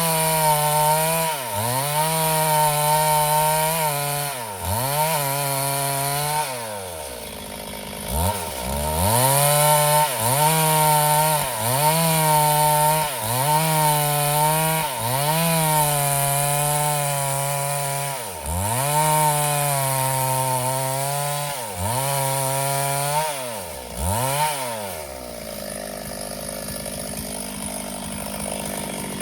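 Two-stroke chainsaw running at high revs and cutting wood. The engine pitch dips each time the chain bites, then recovers, over and over. About 25 seconds in it drops back to a quieter idle.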